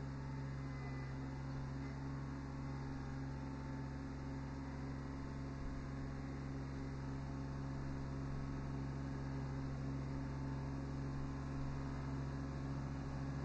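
Kubota B7100 HST compact tractor's three-cylinder diesel engine running at a steady speed, a constant low hum.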